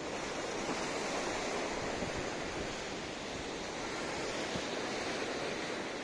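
Ocean surf washing onto a beach as a steady, even rush of breaking waves. The sea is running rougher than usual, stirred up by a distant storm.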